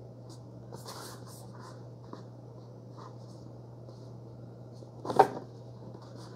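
Faint rustling of a cardboard product box being turned over in the hands, over a steady low hum, with one short sharp sound about five seconds in.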